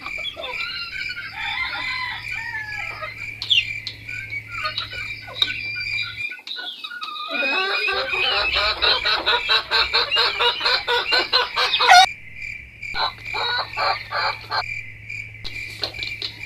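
Young native chickens clucking and peeping at feeding time, busiest in the middle, over a steady high trilling of crickets.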